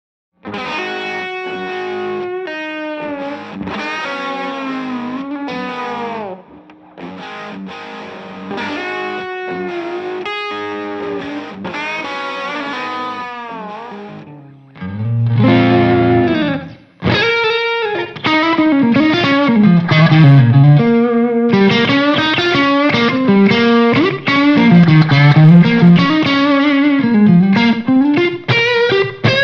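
Electric guitar played through an SSD 90 Fuzz pedal, with fuzz-distorted tone. It plays single-note melodic lines at first, then from about 15 s in turns louder and thicker, with a low held chord followed by bending riffs.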